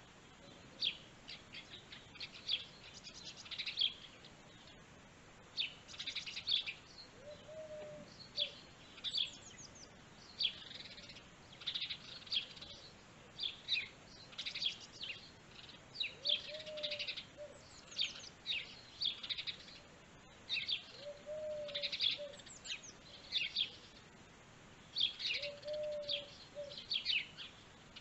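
Woodland birdsong from several birds: a busy stream of quick, high chirps and trills, with a lower, short call repeating every few seconds.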